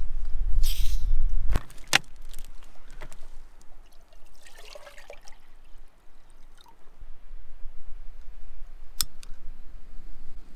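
Water poured from a large plastic jug into a Jetboil stove's cooking cup, splashing for a second or so about midway. Around it, a low rumble at the start and a few sharp clicks of the stove's plastic and metal parts being handled.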